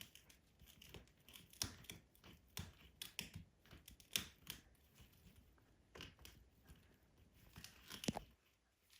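Faint, irregular crackling and clicking from a blue-and-gold macaw fidgeting on her net, with small scrapes and snips of beak and claws.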